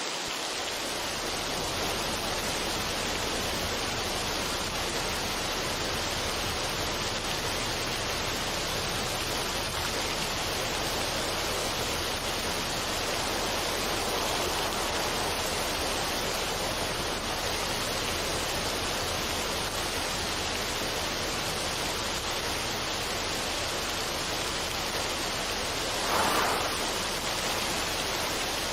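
Continuous even rushing noise, water-like, with no music. There is a momentary dropout at the very start and a brief louder swell near the end.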